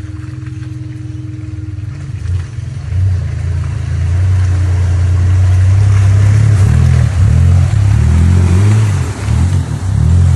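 Pickup truck engine running low, then accelerating about two seconds in and working hard through deep mud. Its revs rise and fall several times near the end.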